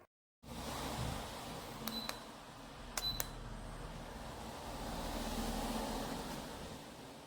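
CHANFOK flush-mount ceiling fan running with a steady whoosh of air that starts abruptly just after the start. Two pairs of short clicks with a brief high beep come about a second apart, near two and three seconds in.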